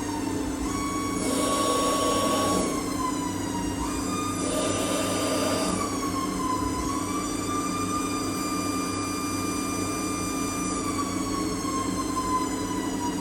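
DynaTurn 102 CNC lathe running a stainless steel cut: a whine whose pitch steps up and glides down several times as the spindle speed changes, over a steady hum, with two spells of louder noise about a second in and about four seconds in.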